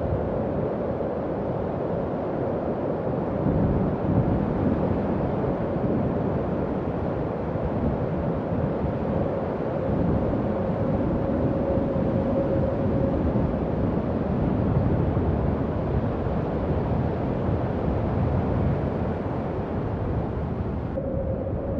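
Howling wind: a steady rush of deep wind noise with a held, moaning whistle that fades in and out and slow swells in strength.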